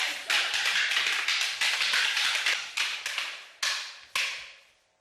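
Kalaripayattu practitioners' demonstration: a rapid, irregular series of sharp slaps and smacks, about two or three a second, fading out near the end.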